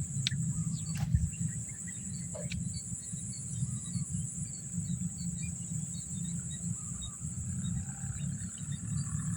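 Swamp ambience: a steady high insect drone with scattered short chirps, over a low irregular rumble, and a single sharp click about a second in.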